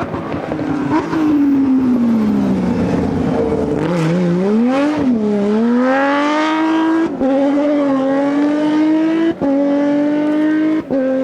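Rally car engine coming off the throttle, its note falling, then accelerating hard with the pitch climbing. The note is cut briefly three times at gear changes.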